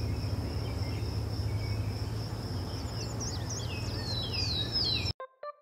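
Nature ambience: a steady high insect trill, like crickets, over a low rumble, with birds chirping in short falling notes over the last two seconds. It cuts off suddenly about five seconds in.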